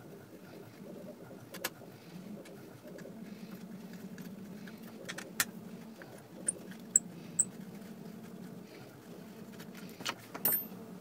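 Hex keys clicking and clinking against the screws and plastic plates of a 3D-printed gearbox being unscrewed. Scattered sharp metallic ticks, with three short high tings in the middle and a cluster of clicks near the end, over a low steady hum.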